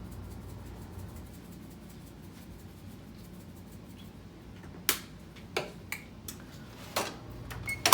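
A low steady hum with a few sharp clicks and taps of kitchen items being handled, starting about five seconds in.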